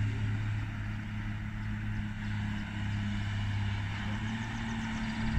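Heavy diesel engine running at a steady speed, an even low hum with no change in pitch.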